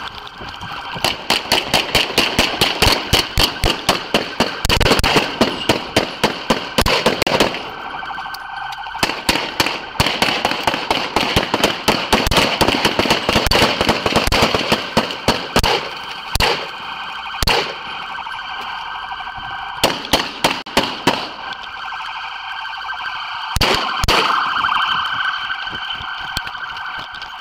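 Close gunfire from a police shootout: dozens of shots in rapid strings, several a second, with a few short lulls and a last brief burst near the end. A steady siren tone sounds underneath throughout.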